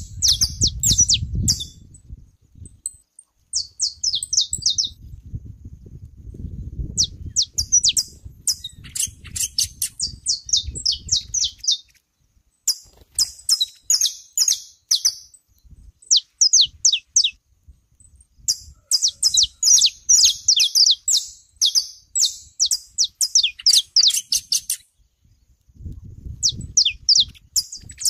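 Saffron finches (canário-da-terra) singing: bursts of rapid, sharp chirping notes in phrases of a second or more, separated by short pauses. A low rumble runs under the singing at the start, again through the middle, and briefly near the end.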